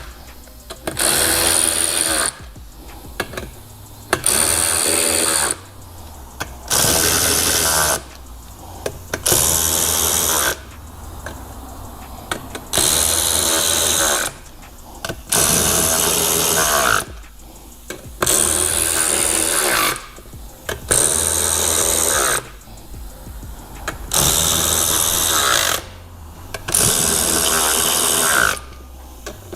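Quarter-inch-drive power tool running beadlock ring bolts down one after another in about a dozen short runs of one to two seconds each. The bolts are being snugged in a crisscross pattern, not fully tightened.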